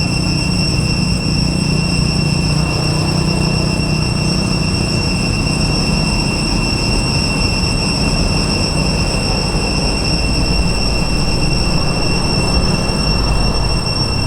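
Steady, loud rumbling noise with a constant high-pitched whine held above it.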